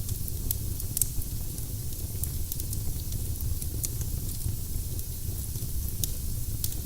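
Firewood burning in a fireplace: irregular sharp crackles and pops over a steady low rumble, with a louder pop about a second in and another near the end.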